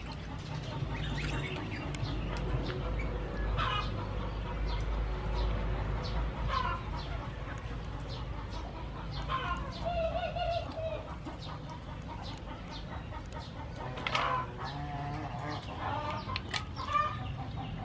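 Chickens clucking now and then, over small clicks and splashes of mussel shells being handled and pried open in a basin of water.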